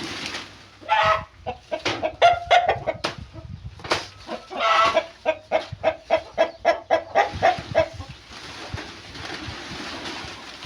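Chickens clucking in a run of short calls, with a quick series of about four clucks a second near the middle. It dies down to a quieter background after about eight seconds.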